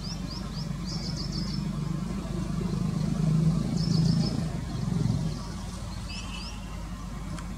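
Twin WDM3A Alco diesel locomotives chugging hard under power as they approach at speed. The low engine rumble builds to its loudest between about three and five seconds in, then drops. Birds chirp in short bursts near the start, around four seconds and near the end.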